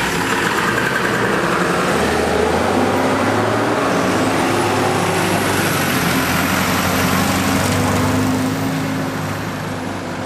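Diesel fire engine driving past close by, its engine note rising as it pulls through and easing off near the end.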